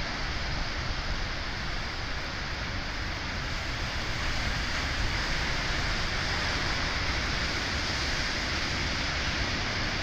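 Ocean waves breaking on the beach, a steady even wash of surf noise, with a low rumble of wind on the microphone.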